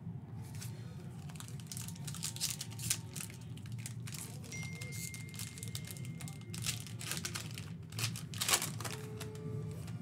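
Foil wrapper of an NBA Hoops trading-card pack being crinkled and torn open by hand: a dense run of sharp crackles, loudest about three seconds in and again near the end.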